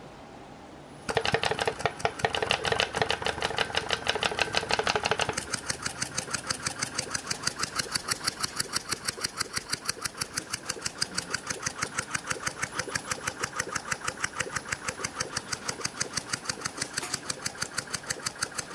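An opened-up scroll compressor starting about a second in and running with a rapid, even clatter, its loose top scroll moving around because it is not clamped down to compress. About five seconds in the clatter gets quieter and thinner.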